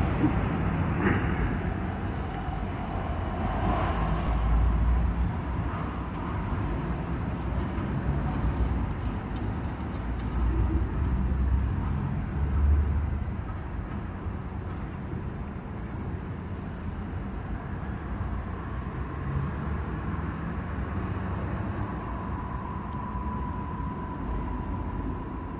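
Urban street ambience: a steady rumble of road traffic, swelling a few times, with a faint steady high tone near the end.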